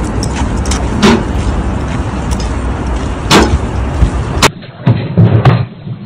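Heavy, continuous low rumbling and rattling, as heard aboard or beside an elevated train during earthquake shaking, broken by a few sharp knocks. About four and a half seconds in it gives way to a duller indoor recording with scattered low thuds.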